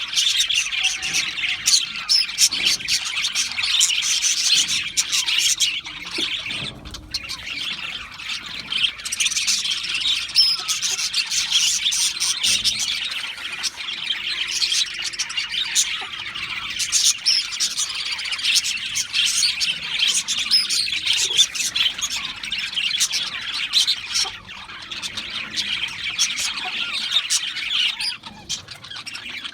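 A flock of budgerigars chirping and chattering continuously, with brief lulls.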